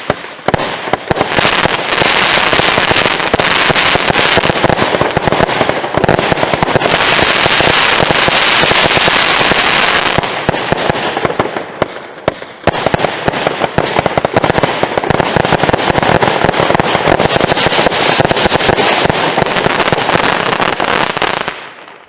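The Climax 2 the Max firework firing a loud, dense, continuous barrage of crackling bursts. It eases off briefly about halfway through, picks up again, then dies away just before the end.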